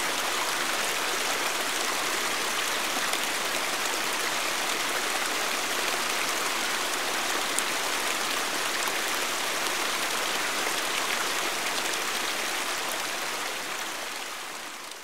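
Steady rushing of a mountain stream, fading out over the last few seconds.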